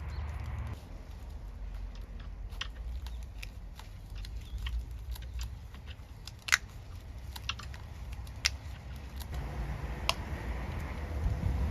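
Scattered sharp clicks and taps of hand work on an air conditioner's plastic pipe cover, the loudest about six and a half, eight and a half and ten seconds in, over a steady low rumble.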